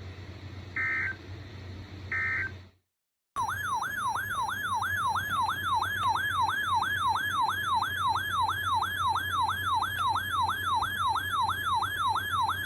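Two short high data bursts of an Emergency Alert System end-of-message signal. After a moment of dead silence comes a loud warbling siren-like alert tone that sweeps up and down about three times a second.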